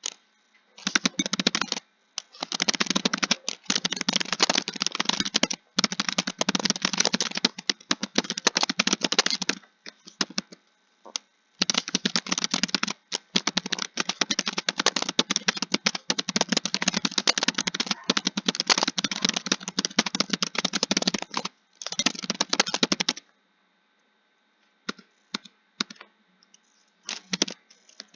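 Fast typing on a computer keyboard: dense runs of keystrokes broken by short pauses, then a few seconds of stillness and a few scattered keystrokes near the end.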